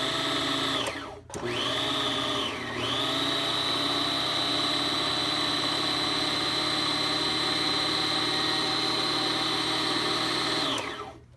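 Bernina 1000 sewing machine motor running from the foot pedal with a steady high whine; it cuts out briefly about a second in, dips around three seconds in, then runs steadily before winding down and stopping near the end. The motor runs but the needle does not move, with a burning rubber smell that the owner takes as a sign the motor has gone bad.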